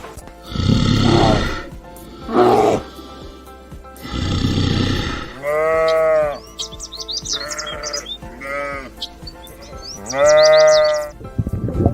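Sheep or goats bleating, about seven calls in turn: the first three hoarse and raspy, the later ones clearer and pitched, each rising and falling.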